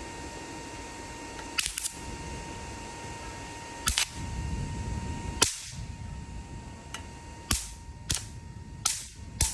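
Sharp electrical snaps from an adjustable battery charger's output leads being shorted together, about eight cracks at irregular intervals, some in quick pairs. They come over the charger's steady high-pitched whine and low hum, which dip briefly at several of the cracks.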